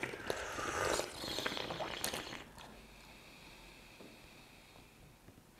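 Sipping and slurping hot oolong tea from small tasting cups, a noisy slurp with a few light clicks lasting about two and a half seconds, then quiet room tone.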